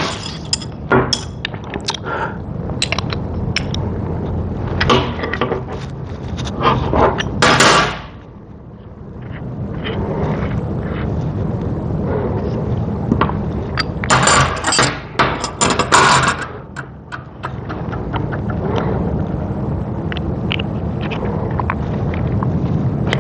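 Air die grinder working on metal: a steady low rumble with repeated scraping and sharp crackling bursts of grinding, dropping away briefly about eight seconds in.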